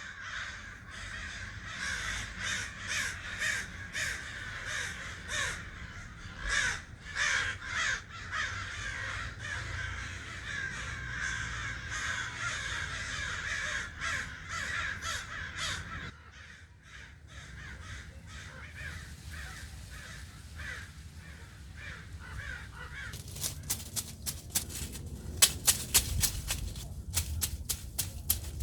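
Repeated harsh bird calls, coming in quick runs through roughly the first half. After a quieter stretch, a run of sharp clicks comes in near the end.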